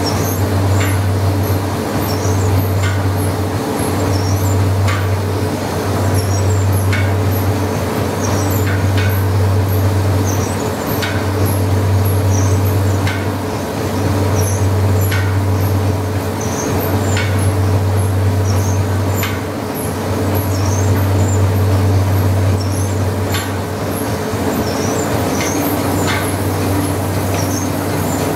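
Stationary steam engine driving a rice mill through its flywheel and flat belts, running steadily. A loud low drone swells and dips every few seconds, with a sharp knock about every two seconds and high chirping throughout.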